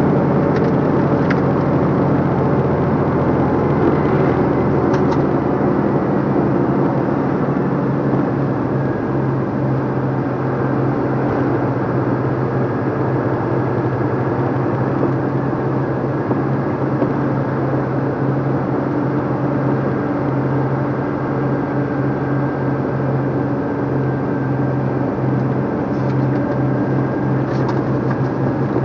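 The diesel engine of a 2014 DAF LF55 truck running steadily at low road speed, heard from inside the cab along with road noise. A few light clicks come near the start and again near the end.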